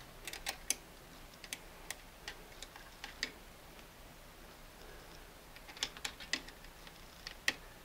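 Small metal parts of a Singer 337 sewing machine clicking and tapping against the machine head as a bracket and lever are fitted in by hand: light, irregular clicks in small clusters, the sharpest one near the end.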